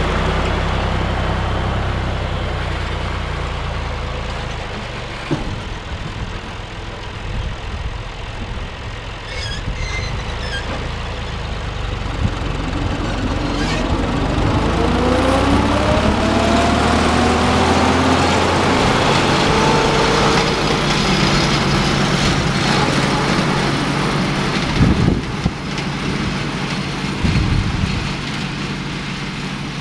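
John Deere 1030 tractor's three-cylinder diesel engine running under load while mowing with a PTO-driven mower, passing close by. Its whine rises in pitch as it passes, about halfway through, and then it carries on steadily as the tractor pulls away. A few sharp knocks come near the end.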